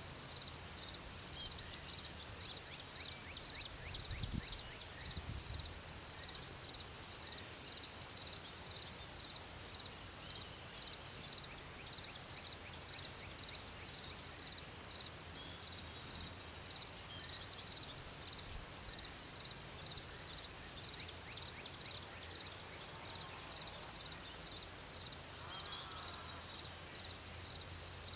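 Insects chirping outdoors in a steady, high-pitched rhythm, about two to three pulses a second, unbroken throughout.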